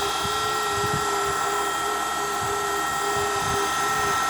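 Small electric motor of an RC model helicopter spinning its rotor, a steady high-pitched whine that wavers slightly in pitch.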